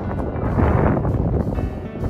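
Background music over wind buffeting the microphone, with a louder gust about half a second in.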